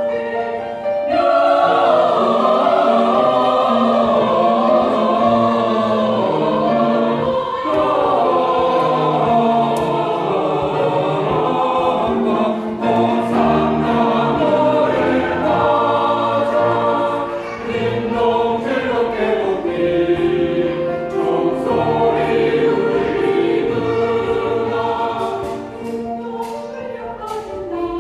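Church choir singing a Christmas cantata piece in harmony, with long held chords that shift in pitch and ease off in loudness near the end.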